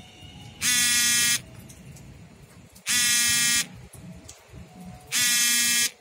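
A loud warning signal with a buzzing tone sounds three times in even blasts, each under a second long and about two and a quarter seconds apart.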